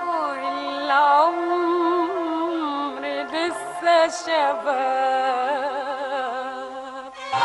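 A woman singing a long, ornamented melodic phrase of an Arabic song, with wide vibrato on the held notes. The accompanying strings come back in just at the end.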